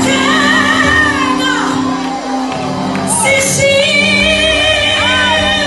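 A women's gospel group singing live into microphones in a large hall, with long held notes that waver in vibrato, over steady low accompaniment notes. Shouts and whoops are heard along with the singing.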